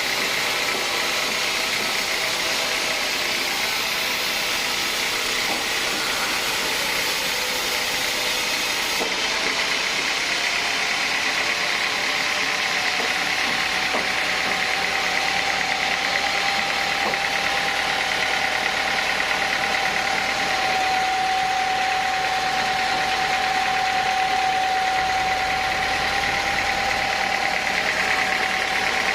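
Sawmill saw running steadily through a teak log, a loud even whine with a lower tone that grows stronger about halfway through.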